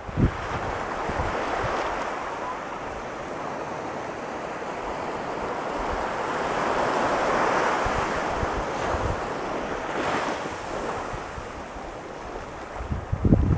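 Ocean surf breaking and washing up the shore as a continuous hiss that swells about halfway through. Wind buffets the microphone with low rumbles, strongest near the end.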